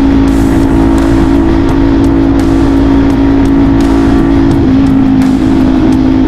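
Kawasaki Z400 motorcycle engine running loud at a steady note, which steps down slightly in pitch about two-thirds of the way through.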